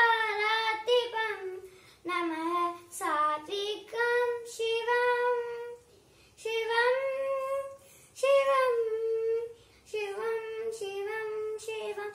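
A young girl singing a Sanskrit shloka solo and unaccompanied, in long held phrases with short breaths between them.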